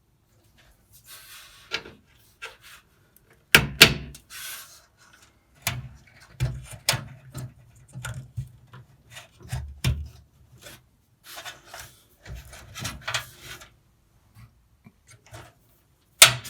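Handling sounds from reconnecting power-supply cables inside a computer case: irregular rubbing and scraping of cables and plastic, with scattered clicks and sharp knocks, the loudest about four seconds in and near the end.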